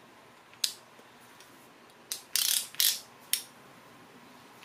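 Sharp metal clicks and brief ratcheting from a Pittsburgh torque wrench and 15/16 socket being fitted onto a cam gear bolt: single clicks about half a second and two seconds in, two short bursts of ratcheting, then a last click.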